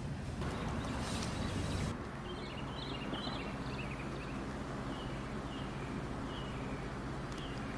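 Street ambience: a car passes during the first two seconds, then a steady low hum carries on under small birds chirping in short repeated bursts.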